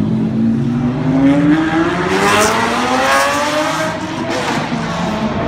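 A car engine accelerating hard, its note rising in pitch over about two seconds and then easing off.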